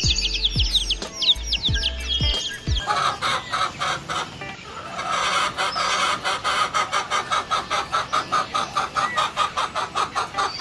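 Chickens clucking in quick, even succession, about five clucks a second. The clucking follows about two and a half seconds of small birds chirping over music with a low thumping beat.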